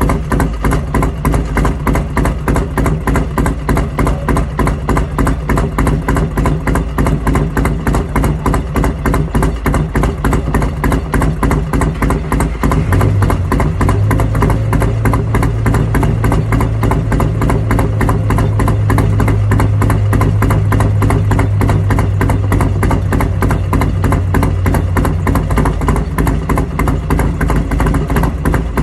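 A 2007 Buell Lightning's air-cooled V-twin idling after a cold start, with an even, loping pulse. About halfway through, a steady low hum rises over the idle and grows a little louder, then drops away near the end.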